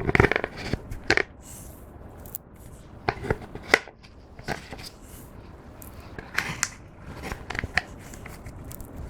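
Clear slime being squished and kneaded by hand, giving irregular sticky clicks and small pops that are loudest at the start.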